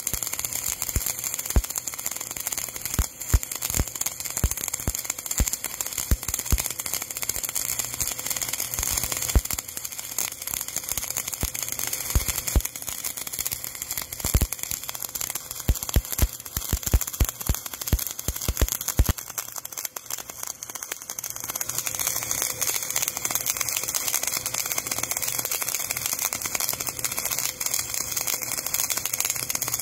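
MIG welding arc crackling and sizzling as it fills a wide 10 mm gap, with many sharp pops. About two-thirds of the way through the popping stops, leaving a steady hiss.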